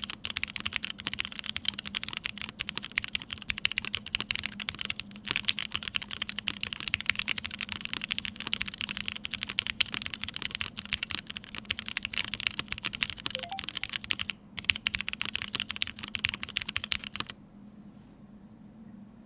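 Continuous fast typing on a TGR Jane V2 ME mechanical keyboard with lubed Vintage Black linear switches, a PC plate, an O-ring mount and GMK keycaps. The typing pauses briefly and then stops near the end.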